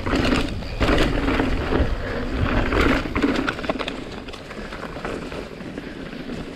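Mountain bike rolling over a dirt trail: tyres crunching on the ground, with clattering knocks from the frame and chain over bumps. It is busiest over the first few seconds, then eases off.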